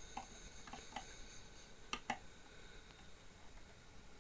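Faint scattered light ticks and clicks of metal scissors being set against a cotton wick and the edge of a rebuildable tank atomizer's deck, before the cut.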